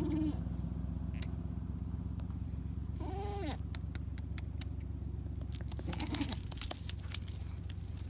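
A goat bleats once about three seconds in, with a second, fainter bleat near six seconds, over the steady low rumble of a delivery truck's engine running.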